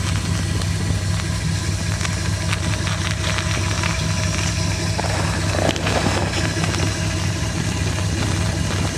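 A faulty water pump running with a steady low hum, with faint irregular ticking over it.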